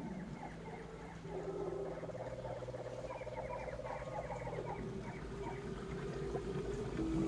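Swamp ambience: a dense chorus of frog-like croaks and chirping animal calls, rapid and repeating, over a low steady hum.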